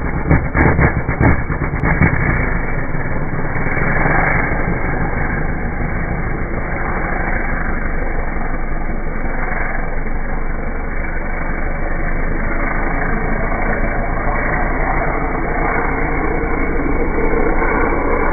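Kawasaki sand drag bike's engine launching, heard slowed down: rapid separate exhaust pulses for the first two seconds or so, then a continuous deep, dull drone as the bike pulls away.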